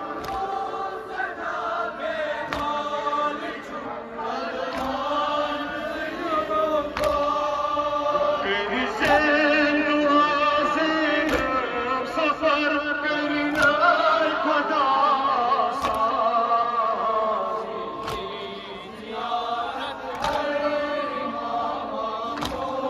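A crowd of men chanting a Kashmiri noha, a Shia mourning lament, together. Sharp slaps of hands striking chests come at irregular intervals.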